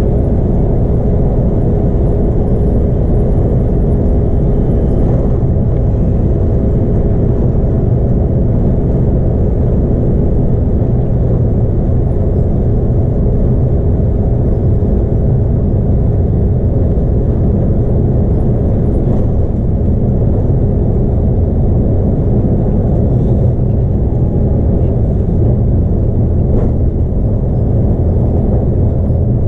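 Inside a Scania K310UB bus cruising at motorway speed: a steady rumble from its 8.9-litre five-cylinder Scania DC9 diesel and the road. A faint steady whine sits over the rumble for the first several seconds, then fades out.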